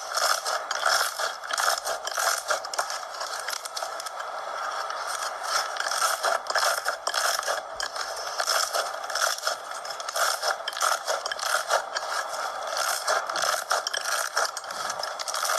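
Slime being squeezed and worked by hand: a continuous run of small clicks, crackles and scraping squelches.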